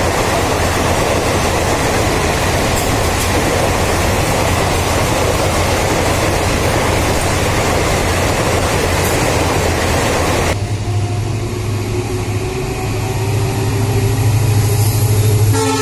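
Mumbai suburban electric local train running, a steady dense rush of wheel and wind noise. About ten seconds in, the sound changes abruptly to a lower hum with a faint, slowly rising whine, and the train's horn starts to sound right at the end.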